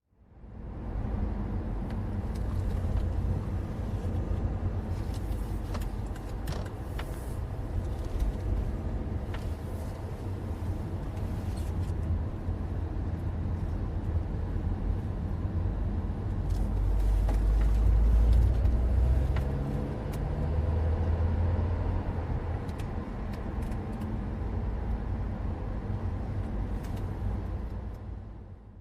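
A car being driven, its engine running with a deep steady sound that grows louder for a few seconds about two-thirds of the way through, with a few faint clicks. It fades in at the start and fades out at the end.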